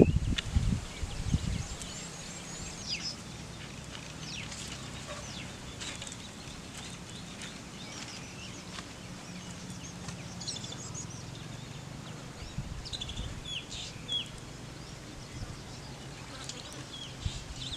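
Birds chirping in short, falling calls scattered throughout, over a faint steady low hum, with a few knocks of handling in the first second and a half.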